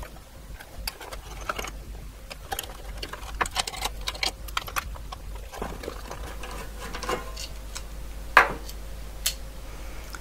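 Screwdriver working out the screws that hold a cooling fan to a metal electronics box: scattered small clicks and scrapes of metal, with one sharper knock a little after eight seconds in.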